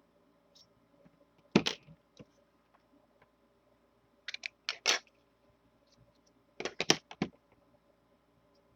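Clicks and knocks from a nail drill handpiece being handled while its chuck is twisted open and closed: one sharp click, then two short clusters of clicks.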